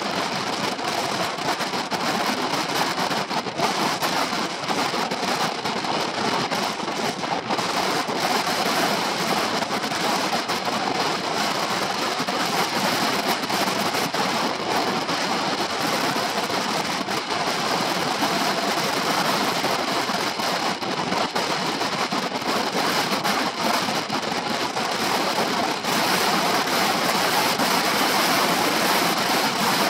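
Wind rushing over the camera microphone while riding, with the Honda PCX 125's single-cylinder four-stroke engine running steadily underneath. The noise gets a little louder near the end.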